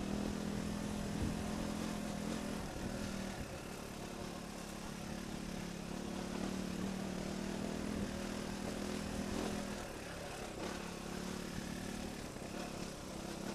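Trail motorbike engine running at a steady pace over a rocky track, its note dipping briefly as the throttle eases about three seconds in and again around ten seconds, with wind noise on the rider's helmet camera.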